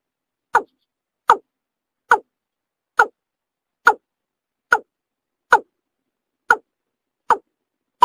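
Watercock calling: a steady series of short, loud notes, each dropping in pitch, repeated about once every 0.8 seconds.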